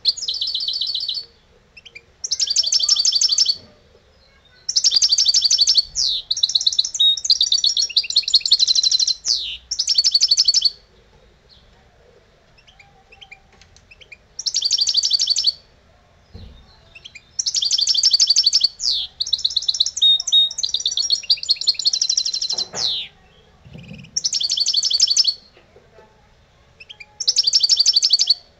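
European goldfinch singing: phrases of rapid, bright twittering and trills, some about a second long and two running for several seconds, separated by pauses of one to four seconds.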